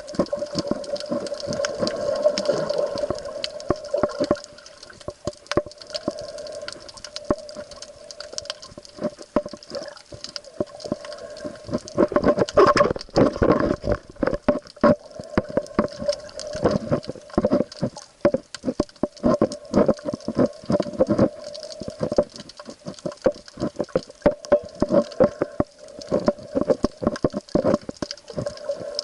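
Water sounds with many irregular sharp clicks and knocks over a steady hum.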